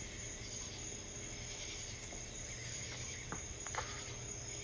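Steady, faint hiss of background noise, with two faint clicks a little after three seconds in.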